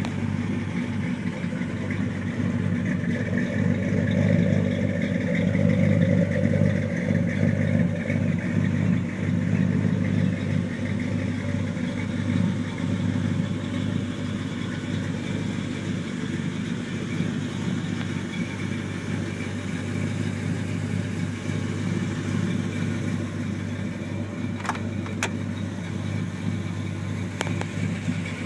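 1985 GMC pickup's engine idling steadily, a bit louder for a few seconds early in the walkaround. A few sharp clicks come near the end.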